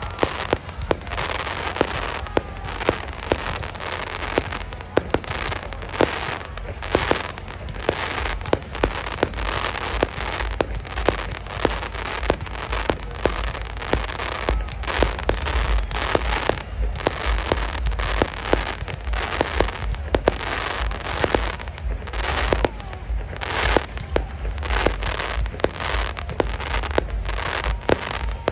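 Fireworks display: many sharp bangs and pops going off in quick, irregular succession over a steady low rumble.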